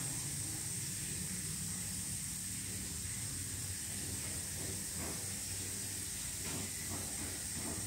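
A steady high hiss over a low hum, with a few faint taps in the second half.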